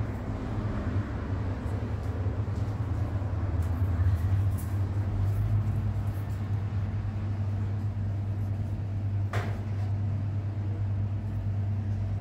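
A steady low motor hum, with a few light clicks and knocks on top and one sharper click about nine seconds in.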